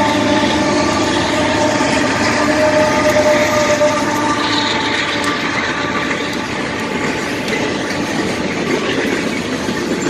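A locomotive's Nathan K5HL five-chime air horn sounding a steady blast that fades out about halfway through, over the continuous rumble and rattle of a passing train.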